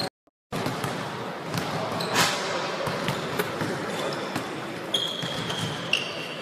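Basketballs bouncing on a hardwood gym floor in a large echoing hall: repeated dribble thuds, with one loud bang about two seconds in. Two short high squeaks near the end, like sneakers on the court. The sound drops out for a moment right at the start.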